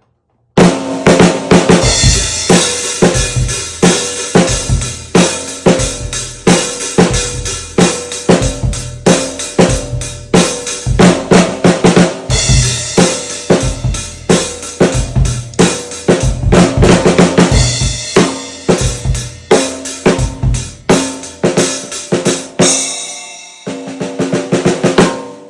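Full drum kit groove built around a 14 x 6.25 inch whiskey-barrel oak snare drum with an Aquarian Studio X batter head, at a low tuning giving a fat snare sound, with bass drum and cymbals. The beat starts about half a second in, runs steadily, and rings out near the end.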